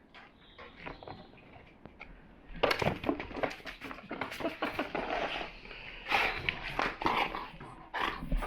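A pet dog making noises close to the microphone, amid scattered clicks and rustles. The sounds are sparse at first and become a busy, uneven run from about two and a half seconds in.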